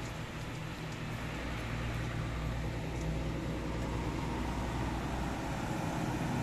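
Truck engine running with a steady low drone under a hiss, getting slightly louder toward the end as the truck approaches.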